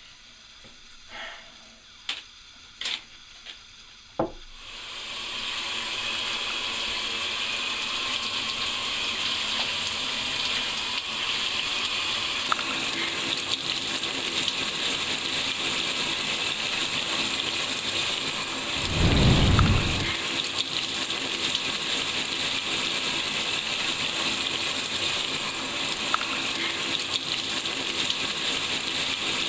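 A few knocks and clicks, then a shower comes on about four seconds in and runs with a steady hiss of spraying water. Partway through, a short low rumble rises over the spray.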